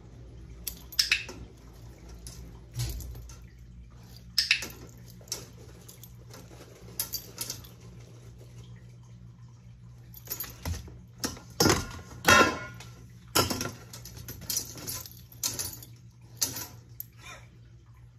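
Stainless steel colander and metal bowl clinking and rattling as a dog pushes into it with its nose and paws. The knocks are irregular, with a busier, louder run of clattering from about ten to fourteen seconds in.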